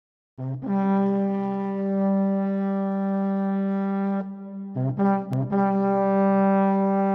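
Background music: long, held notes in a brass-like tone, with a short break about four seconds in before the notes start again.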